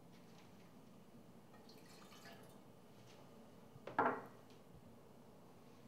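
Liquid being poured into a cooking pot: faint trickling and dripping, with one short, louder sound about four seconds in.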